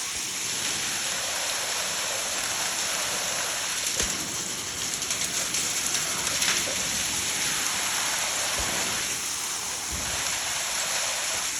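Heavy rain mixed with hail pouring down in a severe thunderstorm: a steady dense hiss with a few sharp ticks of hailstones striking.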